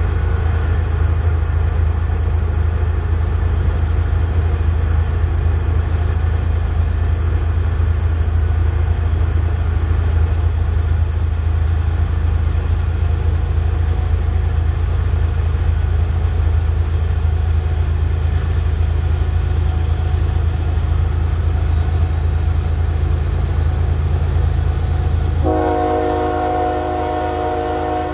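BNSF diesel freight locomotive running with a steady low drone, then its multi-note air horn sounding near the end.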